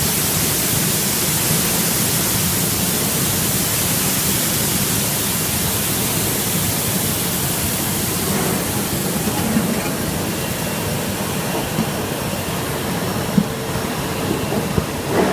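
Water spraying from the spray bars of a brush-type ginger washing machine, a steady hiss with the machine running. The hiss eases about halfway through, and a few light knocks come near the end.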